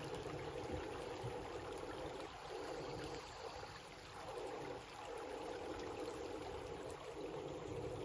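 Small, shallow stream trickling steadily over stones.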